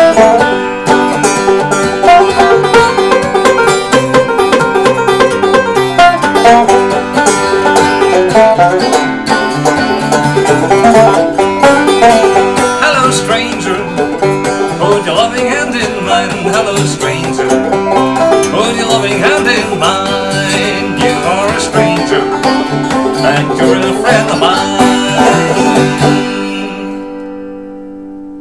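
Clawhammer banjo and acoustic guitar playing an old-time tune together, without singing. Near the end the playing stops and the last chord rings on and fades.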